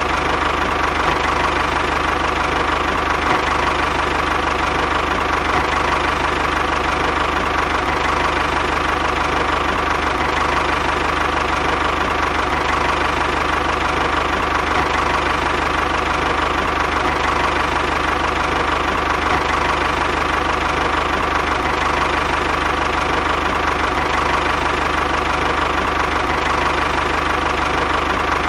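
Small electric motor of a homemade toy tractor running at a constant speed, a steady mechanical hum with an unchanging tone.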